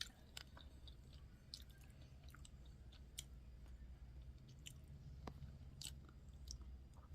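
Faint chewing of spicy fried noodles, with scattered small mouth clicks and smacks over a low steady hum.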